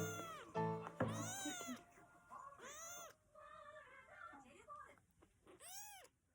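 Kitten about three weeks old mewing several times, each cry rising and then falling in pitch, over background music.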